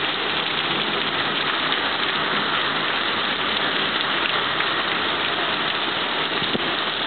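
Heavy rain pouring steadily in a thunderstorm, an even, unbroken hiss of downpour.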